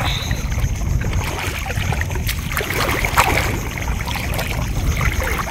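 Wind buffeting the microphone as a steady low rumble, with light sloshing and a few small splashes of shallow seawater as a person wades and reaches into it by hand.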